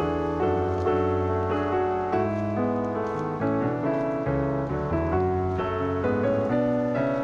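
Background piano music: a steady run of notes and chords, changing about twice a second.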